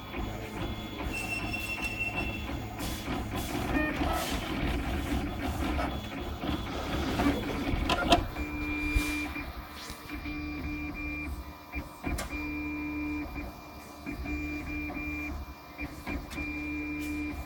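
RoBo 3D printer running a print, its stepper motors whining in on-off runs of a second or two as the print head moves, with a sharp click about eight seconds in.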